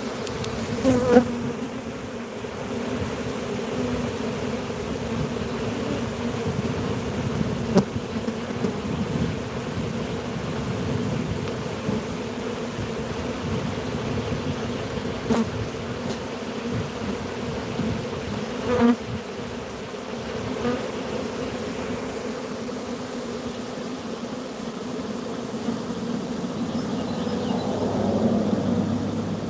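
Honeybee swarm buzzing, a steady dense hum from many bees flying and crawling around a swarm box, with a few short louder spikes, the first about a second in. The bees are milling back out of the box, which the beekeeper takes as a sign that their queen is not inside.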